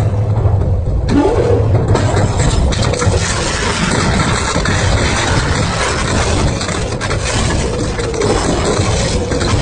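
Double-shaft shredder's cutter shafts turning and chewing through a slatted grid, giving a steady, loud crunching and grinding over a low rumble.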